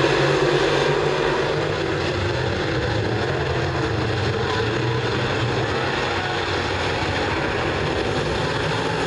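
Dirt late model race cars' engines running together as the pack laps a dirt oval: a steady, continuous engine noise, a little louder in the first second.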